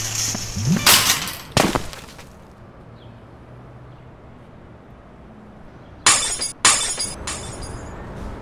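Glass breaking and shattering as a sound effect: a loud crash in the first two seconds and another, sharp and bright, about six seconds in, with a quiet stretch between.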